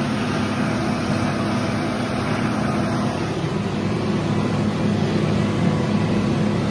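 Large farm tractor's engine running steadily under load as it pulls a disc harrow through the soil.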